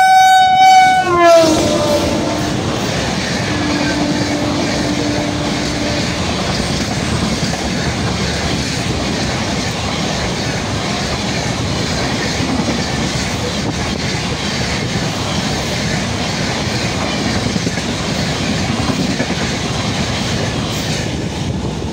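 An express passenger train hauled by a WAP7 electric locomotive passes at speed. Its horn sounds and drops in pitch about a second in as the locomotive goes by. The coaches then rush past, with the clatter of wheels over the rail joints.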